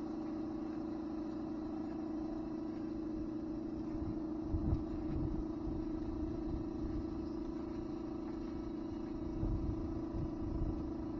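A motor running steadily at one unchanging pitch over a low rumble, with a brief louder knock about four and a half seconds in and a few more near the end.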